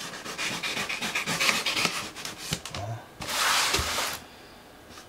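Knife blade slitting the packing tape on a cardboard box: a rapid scratchy rasping, then a louder one-second tearing hiss about three seconds in.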